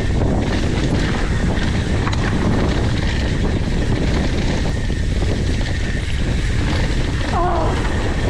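Steady wind buffeting the microphone, a dense low rumble with hiss, with a brief higher-pitched sound about seven and a half seconds in.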